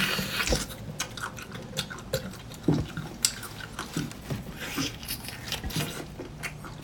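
A person biting into and chewing a large octopus dressed in chili oil, close to the microphone: irregular wet smacks and clicks of chewing.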